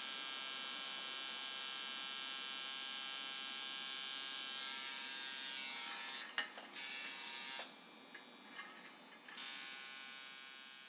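Tattoo machine buzzing steadily. It cuts out about six seconds in, runs again briefly, pauses for nearly two seconds, then starts again and fades out near the end.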